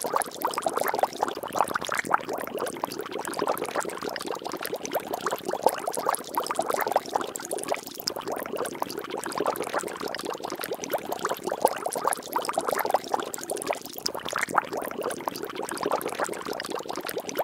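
Liquid bubbling and splashing steadily: a dense, unbroken stream of small pops and splashes.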